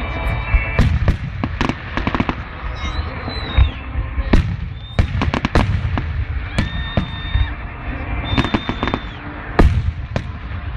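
Fireworks display: a steady series of sharp bangs and crackling bursts, with a few high steady whistling tones.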